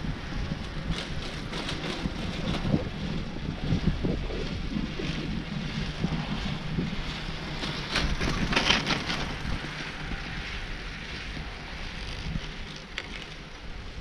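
Skis hissing and swishing through deep powder snow at a slow glide, with wind buffeting the camera microphone; the swish is loudest about eight to nine seconds in.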